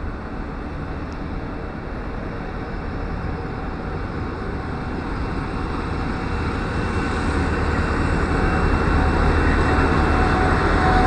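Freight train led by diesel locomotive G512 approaching, its engine and wheel rumble growing steadily louder.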